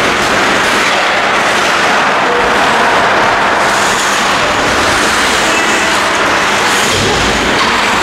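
Ice-rink ambience during a hockey game: a steady wash of noise with a faint low hum underneath.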